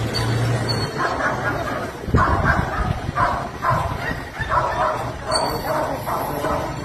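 A dog barking over and over, about two barks a second, starting about two seconds in.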